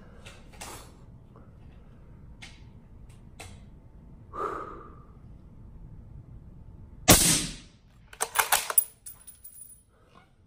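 Suppressed 6.5 Creedmoor bolt-action rifle (Gunwerks Magnus) firing a single shot about seven seconds in. About a second later comes a quick run of metallic clicks as the bolt is worked to chamber the next round.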